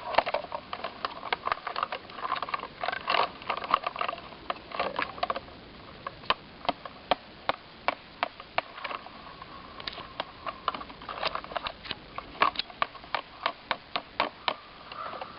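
Hammer tapping a nail into a barky tree trunk: a long series of sharp taps, about two or three a second, in several spells.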